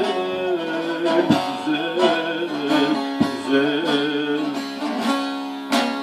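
Bağlama (saz) accompanying a Turkish folk song. A voice holds a long, ornamented note between sung lines, and the strings are struck sharply about every two seconds.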